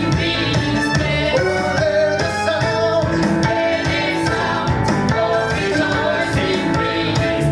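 Gospel song: singing over a band with guitar and a steady beat.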